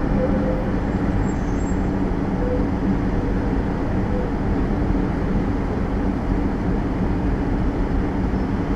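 Steady city street traffic noise at a tram junction: car engines and tyres with a constant low hum, and an articulated electric tram passing through and moving off in the first few seconds.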